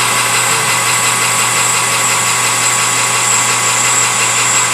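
Metal lathe running steadily, its motor and gearing giving a constant hum with a faint high whine.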